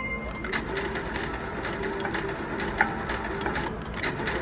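Slot machine spinning, a dense clicking, rattling run of fine clicks over casino background noise.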